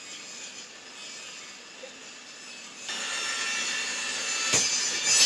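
Table saw cutting a sheet of acrylic (Perspex): a low, steady running sound gets markedly louder about three seconds in, with a whining tone as the blade bites into the plastic. A sharp crack near the end fits the sheet cracking under the blade.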